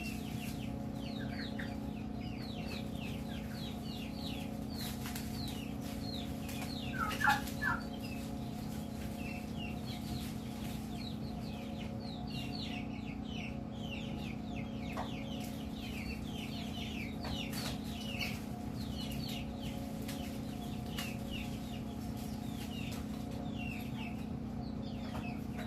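Chicks peeping continuously in rapid short falling peeps, with a louder call from a hen about seven seconds in. A steady low hum runs underneath.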